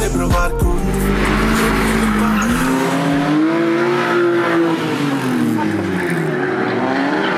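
A drifting car: the engine revs up over a couple of seconds and back down, with tyres squealing over it.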